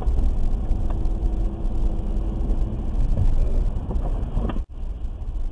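Low, steady rumble of engine and tyre noise on a wet road, heard from inside a moving car. The sound cuts out for an instant near the end.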